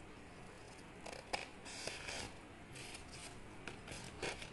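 Scissors cutting through a sheet of paper along a straight line, in a series of short snips starting about a second in.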